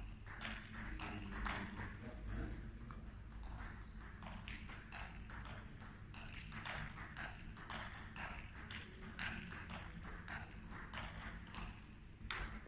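Table tennis balls clicking at uneven intervals as they bounce on tables and are struck by paddles in a sports hall.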